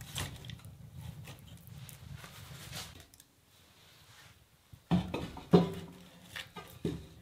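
Split firewood logs being pushed into a wood stove's firebox, knocking against the firebrick and the burning logs: light handling knocks, then two sharp knocks about five seconds in and a few smaller ones after.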